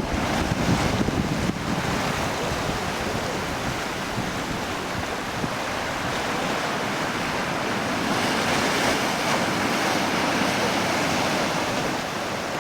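Sea waves washing against a rocky shore in a steady hiss, with wind buffeting the microphone, heaviest in the first second or two.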